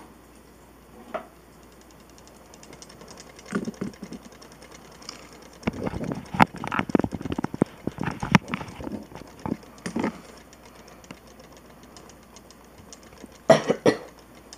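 Wolborg 4 Beyblade spinning on a plastic stadium floor, its tip making a faint rapid ticking as it keeps going on its engine gear. A cluster of louder irregular bursts of noise comes about six to nine seconds in, with shorter ones around four, ten and near the end.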